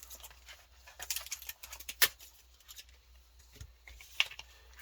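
Foil trading-card booster packs being handled, with scattered sharp crinkles and clicks of the wrappers. The loudest comes about two seconds in.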